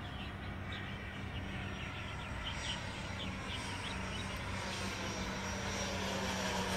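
Electric ducted fans of a Freewing F-15 radio-controlled jet whining as it flies past overhead. The rushing sound grows slowly louder while its several pitches fall gradually through the second half.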